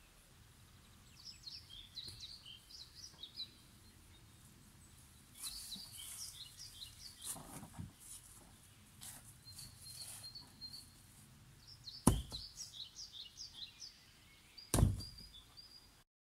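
A songbird singing runs of short, high chirping phrases, over quiet outdoor background. Near the end come two loud, sharp knocks about three seconds apart.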